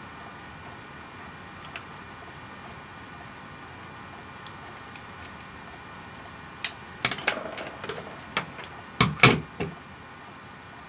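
Faint, fast ticking, about four ticks a second, then a flurry of sharp clicks and knocks over the last few seconds, loudest about nine seconds in.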